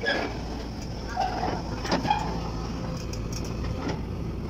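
A heavy-equipment engine running steadily, with a few sharp knocks; the loudest come just after the start and about two seconds in.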